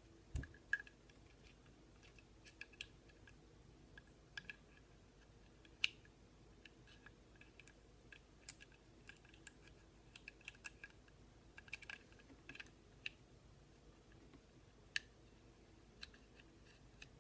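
Faint, irregular clicks and light taps of small metal pistol parts and tools being handled during a trigger install, with a sharper click about six seconds in and another about fifteen seconds in.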